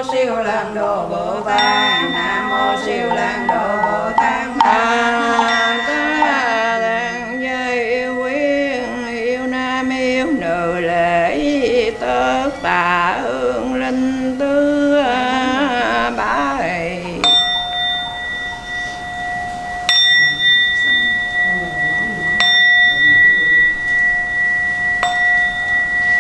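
Buddhist nuns chanting a funeral liturgy in a sung, held-note style. About two-thirds of the way through, the chanting gives way to a Buddhist bowl bell, struck four times about two and a half seconds apart, each stroke ringing on.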